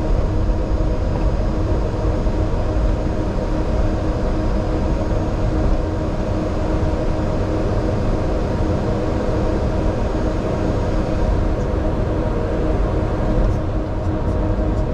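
Airliner flight-deck noise during taxi: a steady low rumble from the idling engines and cabin air, with a few steady hums running through it. A few faint clicks near the end.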